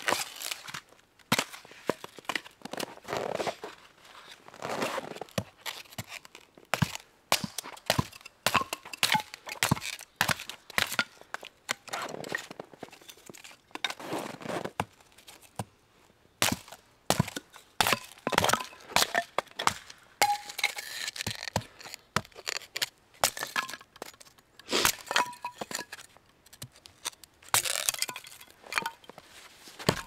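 A hatchet splitting kindling on a wooden chopping block: repeated sharp knocks and cracks as the blade strikes and the thin sticks split off, coming at an uneven pace with short pauses between runs of blows.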